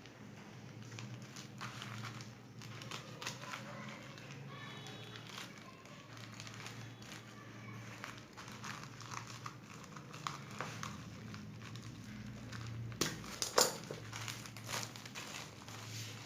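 Cable packaging being handled: irregular crinkling and rustling with scattered clicks, the sharpest and loudest clicks coming a few seconds before the end.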